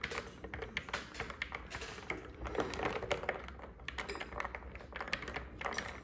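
Ice cubes clinking and rattling against a glass mug as an iced latte is stirred with a straw: a quick, irregular run of light clicks.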